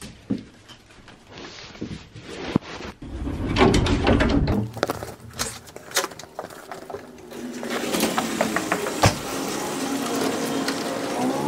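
Footsteps in sandals across a wood floor and then concrete, with a door opening and closing and a cardboard box being handled, making a run of clicks and knocks. Near the end a steady mechanical hum starts with a sharp clunk, a garage door opener starting to raise the door.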